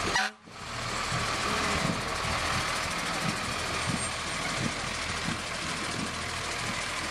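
Engine of a fire-department rescue truck running at low speed as it rolls past at close range, a steady rumble. There is a brief dropout about a third of a second in.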